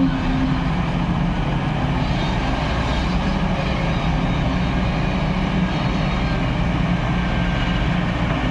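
Diesel engine of a backhoe loader running steadily, with an even low hum.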